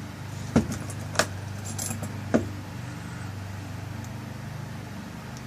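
Sharp metal clicks and clinks of a lock cylinder's small parts as its tail piece is screwed back on, four distinct clicks in the first two and a half seconds, over a steady low hum.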